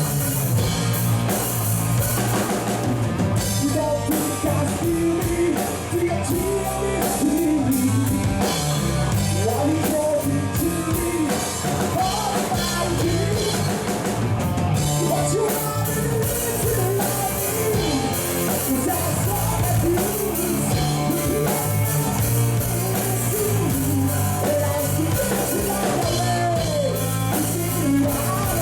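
Rock song playing, with a singing voice over drums, bass and guitar and a steady beat throughout.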